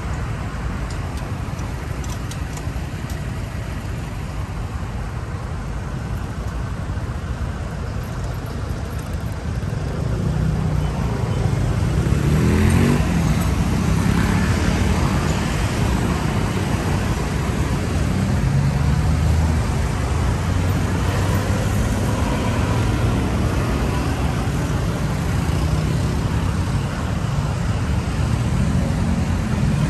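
Road traffic with a steady low rumble that grows louder about ten seconds in. Around twelve seconds in, an engine glides in pitch as motorbikes pass.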